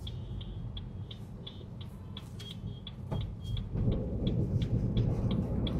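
Car on the move: a steady low engine and road rumble that grows louder about two-thirds of the way through, with faint high ticks above it.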